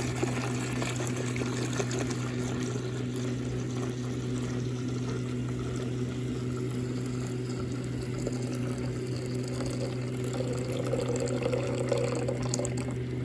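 Hot water being poured from a pan into a container, a steady stream filling it, with a steady low hum underneath.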